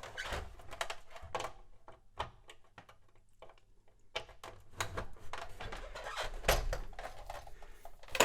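Serial cable and its plugs being handled and connected: scattered clicks, taps and rustles of the plugs and cable, quieter for a couple of seconds in the middle.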